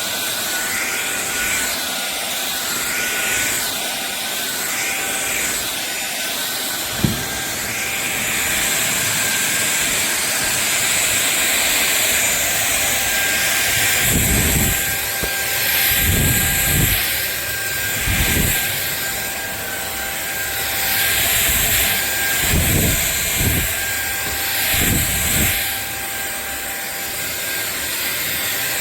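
SunSare X7A cordless stick vacuum cleaner running with a steady motor whine and rushing airflow. There is one sharp click about seven seconds in, and a series of low bumps and rumbles in the second half as the vacuum is handled.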